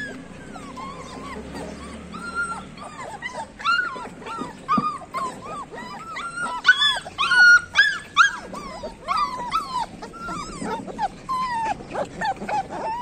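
Several Labrador retriever puppies whining and yelping, many short rising-and-falling cries overlapping in quick succession, loudest and most crowded about halfway through.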